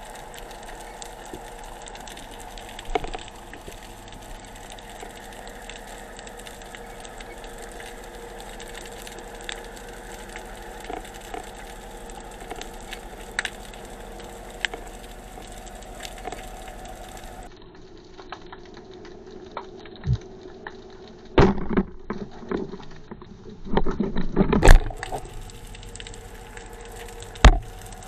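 Underwater sound of the sea through an action camera's housing: a steady crackling hiss. In the last third come several loud, sharp knocks and clunks from handling the speargun as it is fired and misses.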